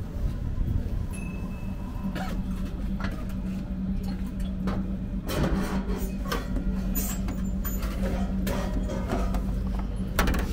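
Hamburger vending machine running with a steady hum, and scattered clicks and knocks as it delivers the heated hamburger box to the dispensing slot; a louder knock near the end as the box is pulled out through the slot.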